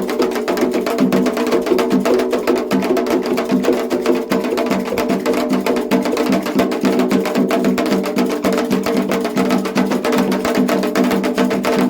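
Candomblé Ketu ritual music: atabaque drums and a sharp struck percussion part keep up a fast, unbroken rhythm under steady group singing.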